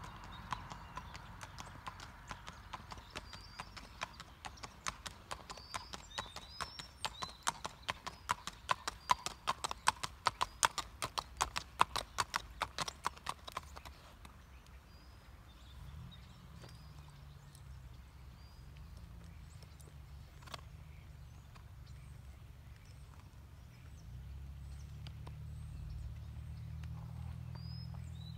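A gaited horse's hoofbeats in a quick, even rhythm, growing louder and then stopping about halfway through. A low steady hum follows.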